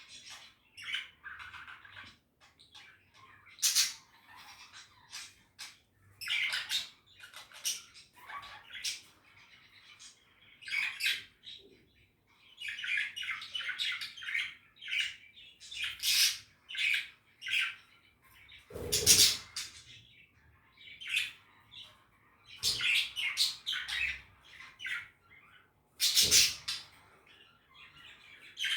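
Budgies chattering and chirping in irregular bouts of quick, high warbles, broken by several loud, sharp squawks.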